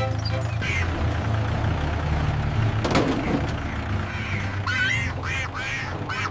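A duck quacking several times, in quick runs near the end, over a steady low rumble. There is one sharp knock about three seconds in.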